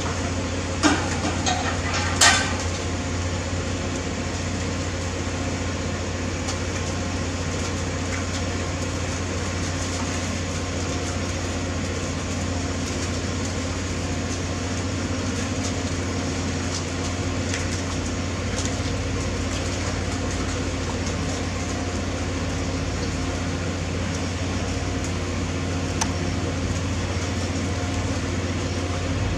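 Steady low mechanical hum with a few even tones running through it, and two sharp knocks about one and two seconds in.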